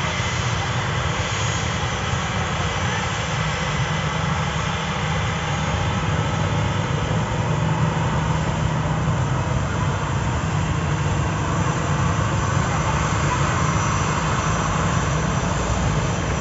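Twin jet engines of a Citilink Airbus A320-family airliner running at high power as it rolls along the runway. The noise is steady and loud, with a deep low rumble, and grows a little louder about halfway through.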